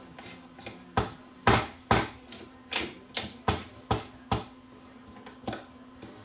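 A quick, irregular run of sharp mechanical clicks and taps, about ten in three and a half seconds and then one more near the end, from the Dual 1225 turntable's auto-changer mechanism being worked by hand while its old, gummed-up grease is cleaned out.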